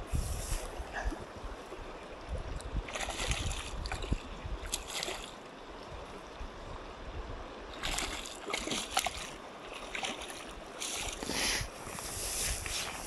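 Fast shallow river rushing over stones in a steady hiss, broken by several short, louder hissing bursts.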